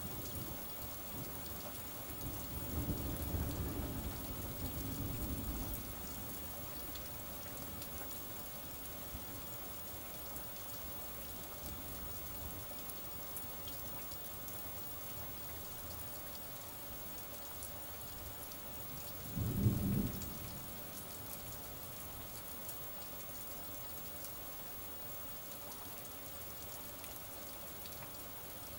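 Steady rain with thunder. A long, low rumble of thunder rolls a few seconds in, and a shorter, louder crack of thunder comes about two-thirds of the way through.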